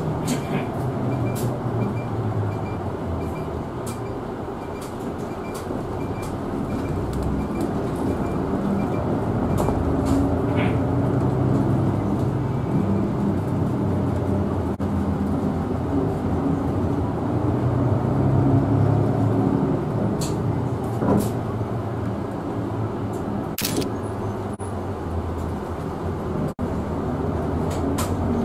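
Bus cabin sound on the move: engine and road noise, the engine note rising and falling a few times as the bus pulls along. Sharp rattles and clicks come from the cabin fittings, and a faint regular ticking runs through the first ten seconds or so.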